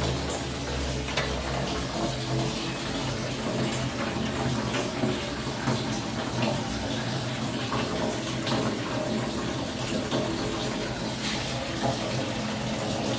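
Water running steadily, with a steady low hum beneath it and a few light knocks.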